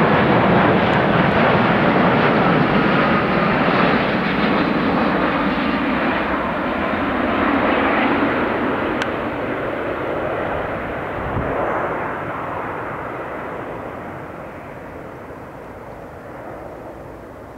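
Jet noise from a Boeing 787 Dreamliner's two turbofan engines as the airliner passes low overhead and flies away. The sound is loud at first and fades steadily, with its high hiss dying away first so that it turns duller as it recedes.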